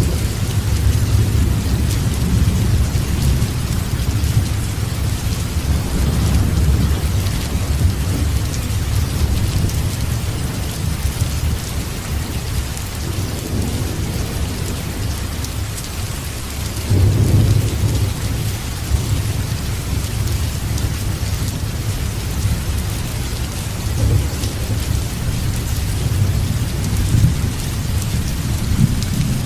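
Steady rain with thunder rumbling low underneath. The rumble swells near the start, again a little past halfway and near the end.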